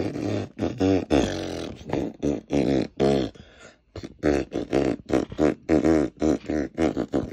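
A rapid, rhythmic run of fart noises: short pitched bursts about three a second, with one longer drawn-out one about a second in and a brief pause near four seconds.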